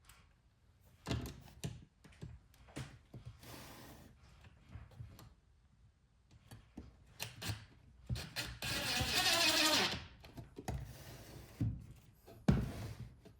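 Workshop handling knocks and clicks as a metal drawer slide is positioned on a wooden drawer, with a cordless drill driving a mounting screw for about a second and a half near the middle, its motor pitch dropping as the screw seats.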